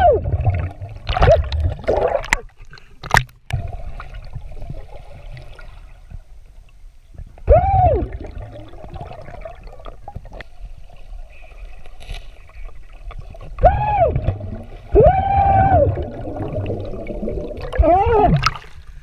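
Underwater sound picked up by a camera in a waterproof housing: about six short, muffled, voice-like cries, each rising and falling in pitch, from divers calling out through their snorkels, over a steady low water rumble. A sharp knock about three seconds in.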